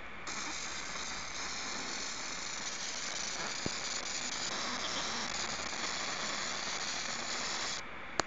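20W fiber laser marking machine engraving a black aluminium card: a steady high-pitched hiss that starts just after the beginning and cuts off suddenly near the end as the marking run finishes.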